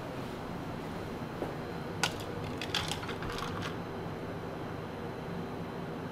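A few light clinks and taps of glassware about two to four seconds in, over a steady low hum of café room tone: small espresso shot glasses being handled and poured into a tall glass of iced milk.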